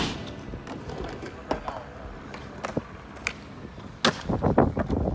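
Skateboard sounds: a sharp clack at the start and scattered lighter clacks of the board. About four seconds in, the sound turns to a louder, steady rumble of wheels rolling.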